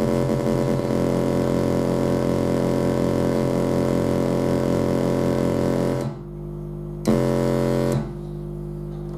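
Electronic buzzing tones from a laboratory generator. For about six seconds there is a dense drone of many pitches with a pulsing warble. It then switches to a quieter steady hum, interrupted by a one-second louder burst of buzz about seven seconds in.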